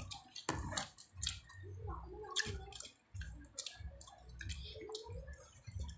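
Close-miked eating sounds: chewing and wet mouth smacking with many irregular clicks, as rice and squid adobo are eaten by hand.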